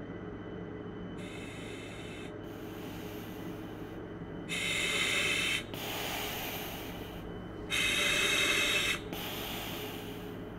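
Heavy breathing: three rounds, each a short sharp breath followed by a longer, softer one, the second and third louder than the first, over a steady low hum.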